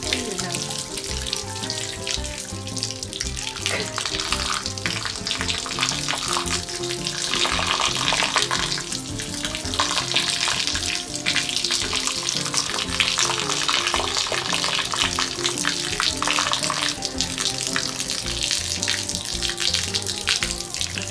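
Hot-spring bath water falling from an utase-yu cascade, splashing steadily, with background music playing.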